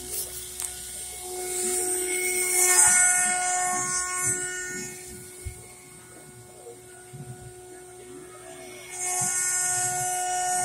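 CNC spindle running with a steady whine of several tones while its end mill cuts a thick disk. The cutting noise and hiss grow loud about two seconds in, drop back for a few seconds in the middle, then rise again near the end.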